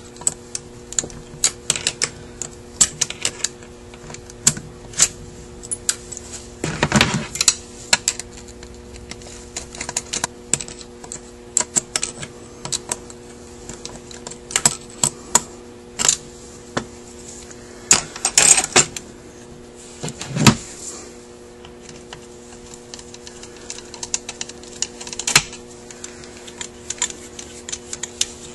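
Irregular small metal clicks and taps as a screwdriver works the two long screws out from inside the bores of a Rochester Quadrajet electronic four-barrel carburetor. A few louder clanks come about seven, eighteen and twenty seconds in, over a steady low hum.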